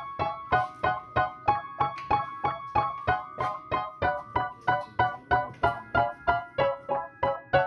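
Background music: keyboard notes struck in an even run, about three a second.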